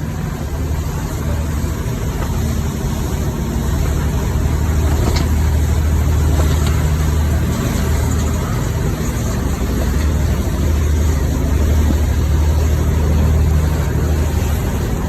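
An engine running steadily with a low hum that swells and eases slowly, under a constant rushing noise.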